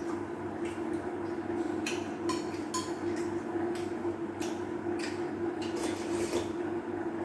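Eating utensils clicking and tapping against dishes during a meal, many short sharp clicks scattered through, over a steady hum with a low even pulse.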